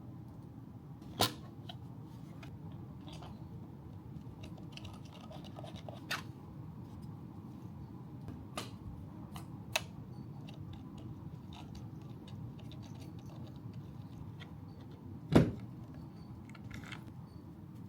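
Sharp clicks, taps and light rattles of hard plastic accessory parts being handled and fitted, with a louder knock about a second in and another about fifteen seconds in, over a low steady hum.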